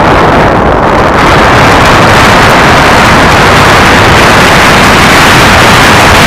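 Loud, steady wind rush buffeting the microphone of a moving camera, mixed with the rumble of tyres rolling over a gravel track.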